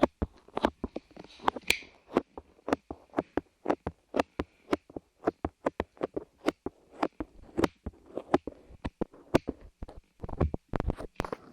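Light clay squeezed, tapped and peeled on the microphone's ears. It makes a rapid, irregular run of sharp sticky clicks and taps, with a couple of duller muffled rubs near the end.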